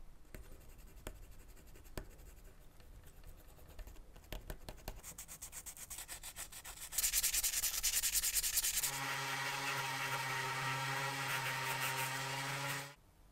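Small brass parts being scrubbed and abraded, with scattered scratches that turn into rapid scratching strokes. About nine seconds in, a handheld rotary tool runs steadily with a small polishing bit against the metal, then stops just before the end.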